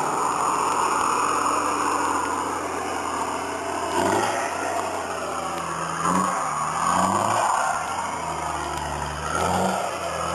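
Nissan GQ Patrol four-wheel drive's engine revving under load as it climbs a rutted muddy hill track, the pitch rising in surges several times as the driver gets on the throttle.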